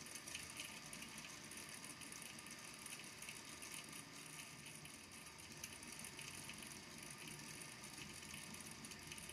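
Small balls in a volcano lamp's water tank tapping on the tank's base as they sink back down, a faint, continuous rattle of soft clicks.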